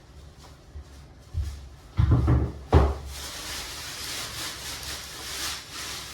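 A few knocks and clatters, the loudest two about two and three seconds in, followed by a steady hiss.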